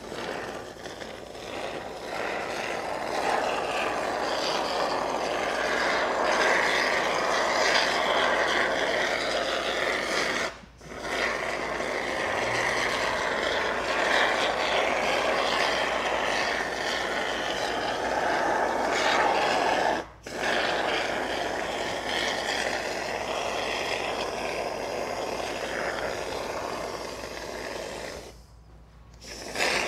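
Expanding foam spraying from an aerosol can through its straw nozzle in a steady hiss. It breaks off briefly twice, about a third and two-thirds of the way through, and stops for a moment near the end.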